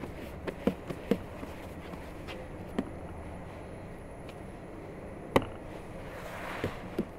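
Bread dough being kneaded and shaped by hand on a floured wooden board: scattered soft thumps and pats, with one sharper knock about five seconds in, over a steady low background noise.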